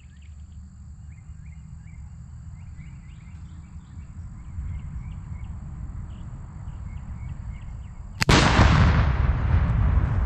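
Steady low wind rumble with faint chirping, then about eight seconds in five pounds of Tannerite detonates under a rifle hit: one sharp, very loud blast that rolls on as a long rumble.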